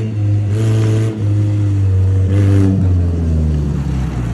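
Modified off-road 4x4's engine revving hard as it drives across loose gravel, with two throttle surges each carrying a rush of noise. The engine pitch then drops and eases off as the vehicle swings past.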